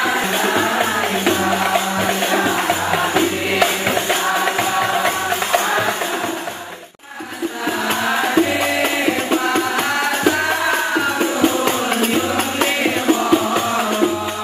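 Al-Banjari ensemble: a group of boys singing an Islamic devotional song together to the beat of rebana frame drums. The music breaks off for an instant about halfway through, then starts again.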